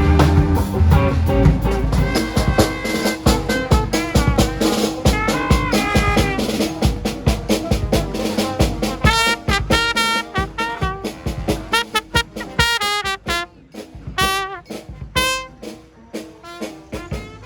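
Jazz music with a horn over drums, the horn's melody wavering with vibrato on held notes.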